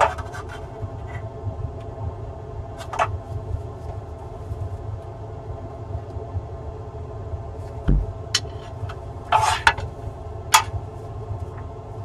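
Hot glue gun and other tools being handled on a work mat: a few sharp clicks and a short scrape, with a dull thump about eight seconds in, over a steady low hum.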